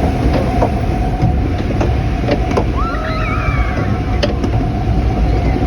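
Loud, steady rush of falling water from a theme-park waterfall, with a constant hum under it and a short high squeal about three seconds in.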